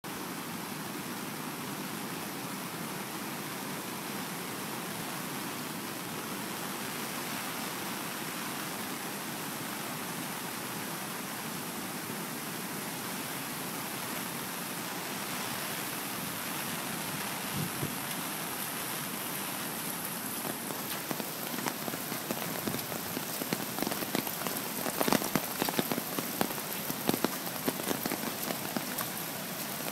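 Steady heavy rain mixed with the rush of a flooded river in spate. From about twenty seconds in, louder sharp taps and splashes come in close by.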